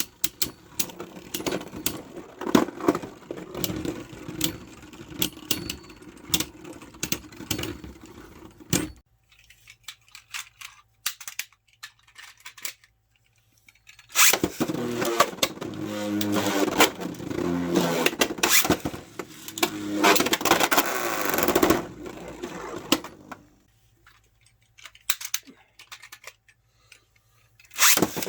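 Beyblade Burst tops Hyperion Burn and Helios Volcano battling in a plastic stadium: a whirring spin with rapid clacks and rattles as they collide, which stops about nine seconds in. After a few quiet seconds with scattered clicks, a second round runs for about eight seconds with a louder whir whose pitch shifts, followed by a few light clicks of handling and a loud burst at the very end.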